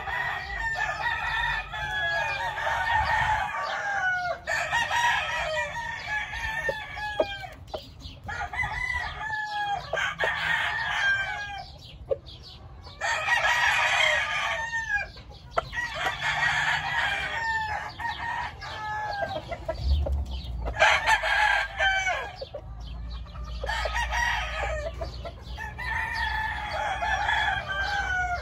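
Several gamefowl roosters crowing one after another, each crow about two seconds long, the crows coming every few seconds and often overlapping.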